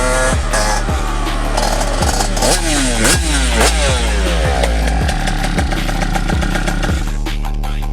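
Kawasaki Ninja 150RR two-stroke motorcycle engine revving, its pitch climbing and dropping sharply several times, over background music with a deep beat about twice a second.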